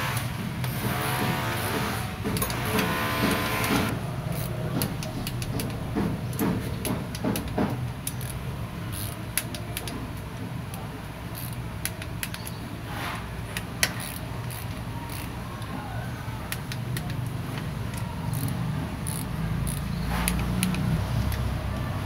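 Ratcheting torque wrench clicking in short runs as the clutch-cover bolts on a Honda CRF150 engine are tightened, with a few sharper clicks standing out, over a steady low hum.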